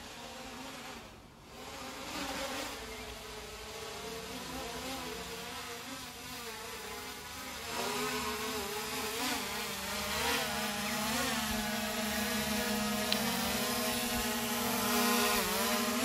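DJI Mini 3 Pro drone's propellers buzzing as it comes down to land, the pitch wavering as the motors adjust. It grows louder as the drone comes closer, most of all from about halfway in.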